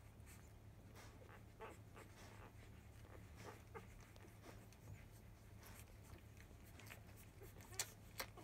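Five-day-old Labrador Retriever puppies nursing: faint scattered squeaks and small suckling and rustling noises, with a sharper click near the end.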